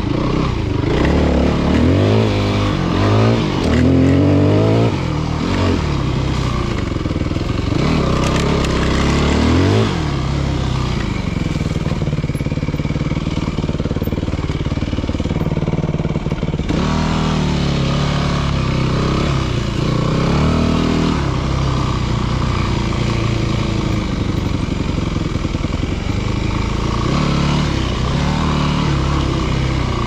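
Yamaha WR250F dirt bike's single-cylinder four-stroke engine running under way, its revs rising and falling repeatedly with the throttle in the first ten seconds and again a little past halfway, and holding steadier in between.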